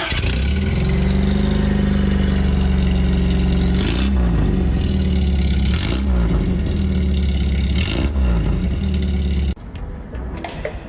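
Datsun 910 Bluebird's engine running through its newly fitted 3-inch exhaust pipe: it catches at the start and runs with a steady note, revved briefly three times about two seconds apart. The sound cuts off abruptly about a second before the end.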